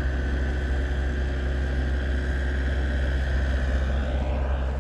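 An engine running steadily: a continuous low drone with a faint steady whine above it.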